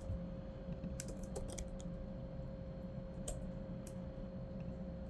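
Typing on a computer keyboard: a quick run of keystrokes about a second in, then a couple of single keystrokes, over a faint steady hum.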